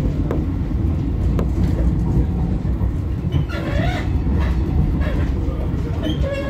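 Running noise of an NGT6DD low-floor tram heard from inside the car as it rolls through a curve: a steady low rumble with a couple of clicks over rail joints or points in the first second and a half, and a wavering squeal from the wheels about three and a half seconds in.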